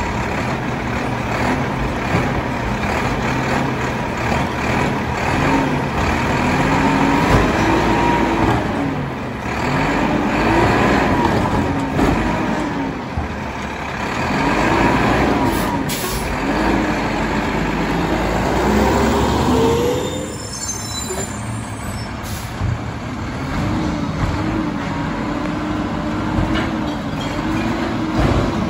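Mack LEU garbage truck engine revving hard, again and again, rising and falling about every two seconds, while the McNeilus side-loader arm lifts and dumps a cart; the revs drive the packer's hydraulic pump. About two-thirds of the way in the revving stops and the engine settles into a steadier, slowly rising note.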